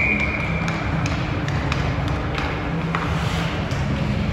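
Indoor ice rink ambience: a steady hum with scattered clicks and knocks from hockey sticks and pucks on the ice, and a short high steady tone near the start.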